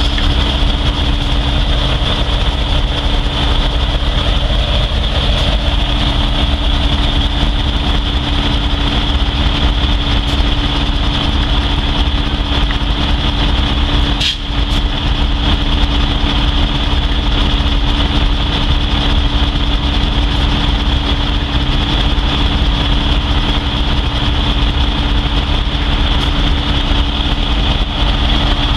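Norfolk Southern diesel locomotive idling steadily: a low drone with a steady hum, under a continuous high-pitched whine, with a brief break about halfway through.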